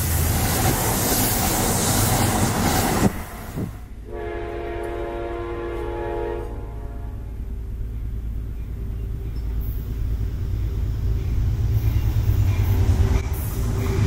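An Amtrak train rushing past, its loud rumble cut off abruptly about three seconds in. Then a Metro-North train's horn sounds one long chord of several notes for about two and a half seconds, followed by the rumble of the train drawing nearer and growing louder.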